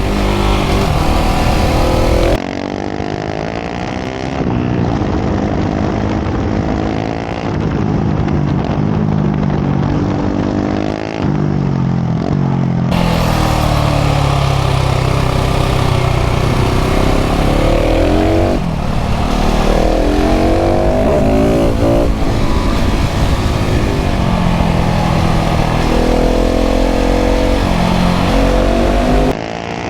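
KTM 690 SMC R's LC4 single-cylinder engine through a full LeoVince exhaust, ridden at full throttle on short 15/45 gearing. The revs climb and drop again and again as it pulls through the gears.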